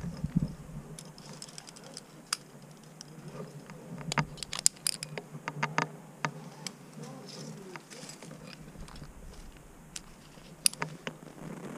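A climber's hands and shoes scuffing on rock, and climbing gear on the harness clinking: an irregular run of small clicks and scrapes, busiest about four to six seconds in. A sharper click comes near the end as the rope is drawn up to a quickdraw.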